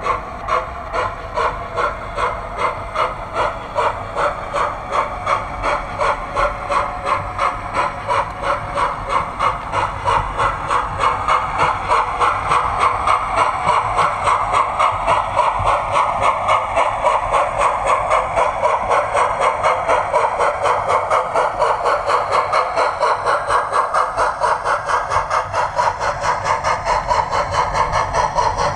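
Sound-fitted OO gauge model steam locomotive chuffing through its small speaker, a regular beat that comes quicker as the train picks up pace.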